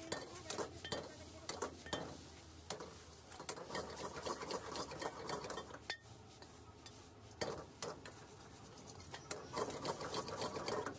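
Metal ladle clanking and scraping against a steel wok as vegetable noodles are tossed and stir-fried, in irregular strokes.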